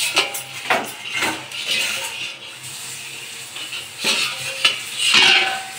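Steel plate clanking and scraping against a stainless-steel kadhai as it is handled on the stove. Several metal clatters come in the first second and a half, then more about four seconds in, the last one ringing briefly.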